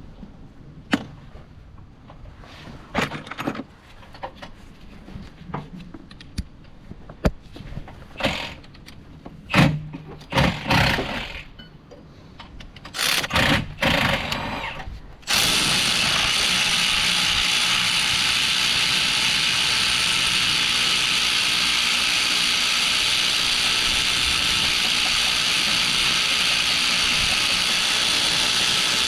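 Hand tools clinking and knocking as a starter-motor bolt is worked loose, in scattered sharp clicks. About halfway through, a loud steady hiss cuts in suddenly and holds unchanged.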